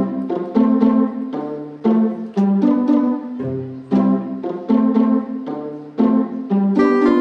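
Background music: a steady, bouncy run of short pitched notes, a new note or chord about every half second.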